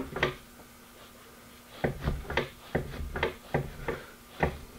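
Closed rear lift glass of a 2012 Ford Escape knocking in its latch as it is pushed and tugged to test the newly fitted hatch-glass hinges: one knock, then after a pause a run of about eight irregular knocks.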